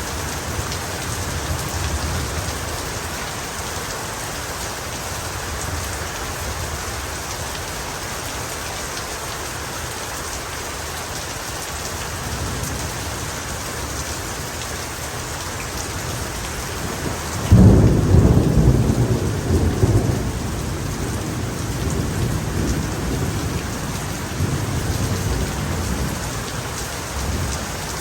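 Heavy rain falling steadily. A sudden loud thunderclap breaks in about two-thirds of the way through and rolls on as rumbling thunder.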